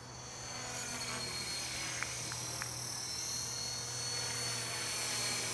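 Electric 450-size RC helicopter in flight, its brushless motor and rotor blades making a steady high whine that grows gradually louder.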